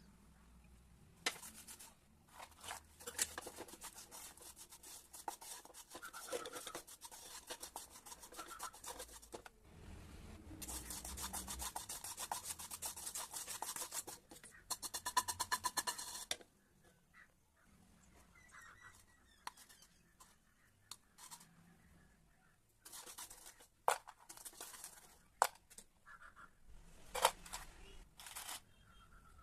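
A spatula scraping and stirring cashews in sugar in a pan. A dense run of scraping and clicking lasts about fifteen seconds, then it goes quieter, with a few sharp clicks near the end.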